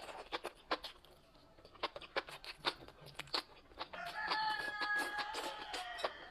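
A scatter of sharp clicks and taps, then about four seconds in a rooster crows once: one long held call that drops in pitch at the end.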